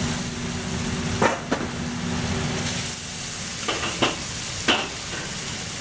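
Asparagus and water chestnuts sizzling in a hot wok, with a metal spatula knocking and scraping against the wok about five times.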